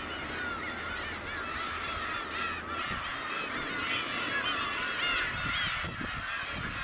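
A large flock of birds calling all at once, with many short, overlapping calls.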